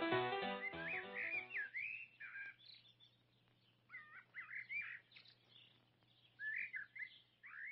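Piano music fading out in the first second or so, then a songbird chirping in short, scattered phrases with pauses between them, over a faint steady low hum.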